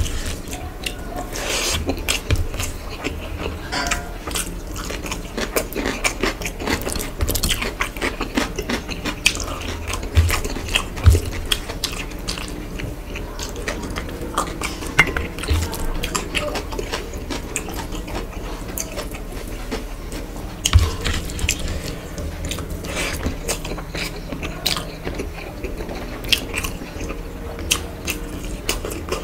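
Close-miked eating by hand: chewing and lip smacking of mouthfuls of rice mixed with cabbage, with wet squishing as fingers mix and gather the rice on the plate. A few dull knocks stand out, around a third of the way in and again about two thirds of the way through.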